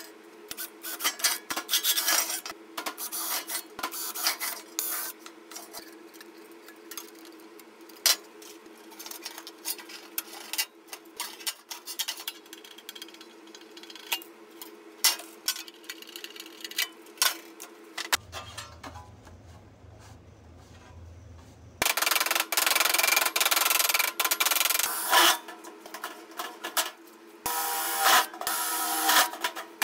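Thin sheet metal handled on a steel work table, rubbing and clicking against it. Later a power drill runs in two bursts, of about three seconds and about two seconds, boring into a metal can.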